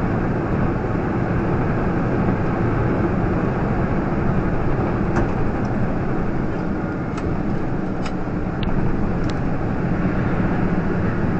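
Steady road and engine noise inside a moving vehicle, picked up by a dashcam, with a few faint ticks.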